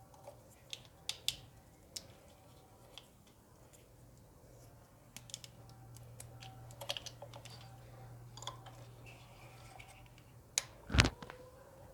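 Scattered small plastic clicks and taps of hands working on an ignition coil's wiring connector and pin, over a faint steady hum, with a louder knock a little before the end.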